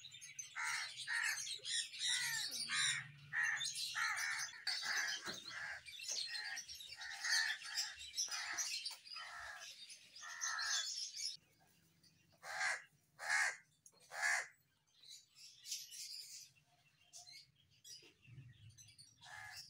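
Crows cawing: a rapid run of harsh caws, about two a second, over high chirping of smaller birds. About halfway through the chirping stops and only a few single caws follow.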